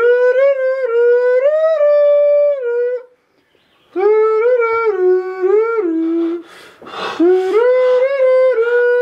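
A person's voice singing a wordless tune in a high voice, on held notes that step up and down. It comes in three phrases: a break of about a second follows the first, and the third starts just after a short burst of noise.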